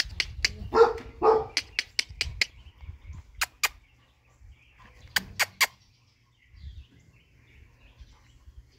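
A dog barks twice, about a second in. Around the barks are sharp clicks and taps, a quick run of them early on, then a pair, then a few more close together.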